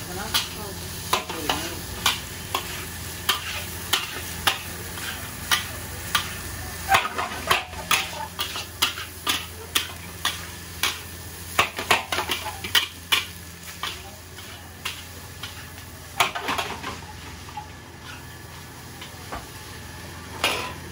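Long metal spatula scraping and clanking against a stainless steel wok while fried rice is stir-fried and sizzles. The clanks come about once or twice a second at first and thin out after about fourteen seconds, with single loud strikes later on.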